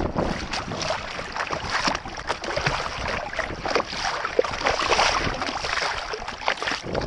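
Water splashing and lapping against the hull of a small sailboat under way, a dense run of quick, irregular splashes.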